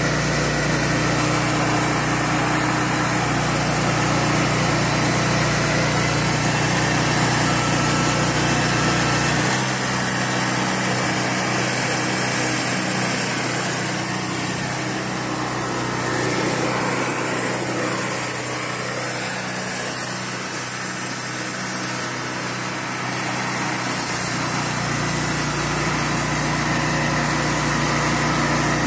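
Wood-Mizer portable band sawmill running steadily, its engine driving the bandsaw blade through a cedar cant; the deepest part of the engine sound fades for about fifteen seconds in the middle as the sawhead moves away along the log.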